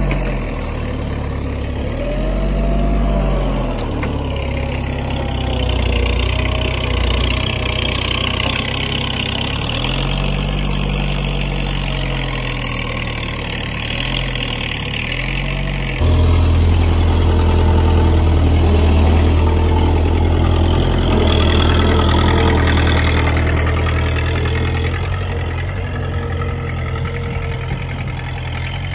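Case 1845C skid steer's diesel engine running while its backhoe attachment works, the revs rising and falling. About halfway through it turns louder and steadier.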